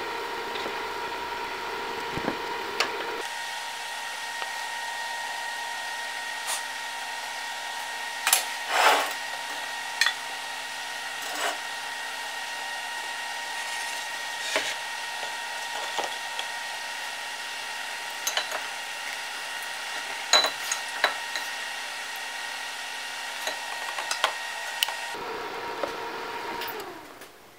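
Inverter welder used as the power supply for a small electric furnace, running with a steady fan noise and a high electrical whine, with scattered clicks and knocks. Near the end it is switched off and the fan spins down with a falling tone.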